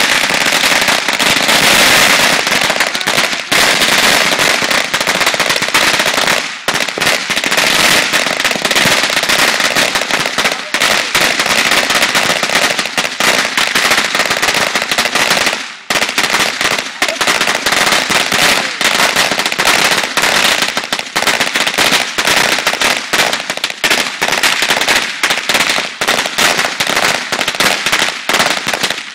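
A long string of firecrackers going off on the pavement: a dense, very loud, rapid crackle of bangs with a few short lulls, stopping abruptly near the end.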